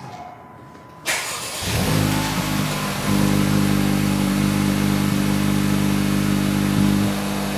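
A 2024 Honda Civic Type R's turbocharged four-cylinder starting through its stock exhaust: the starter cranks about a second in, the engine catches and flares up, then settles into a steady high idle that drops a step near the end.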